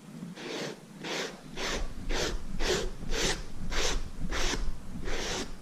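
Pumice stone rubbed back and forth over the seat's foam padding to smooth it, a rasping scrub of about two to three strokes a second.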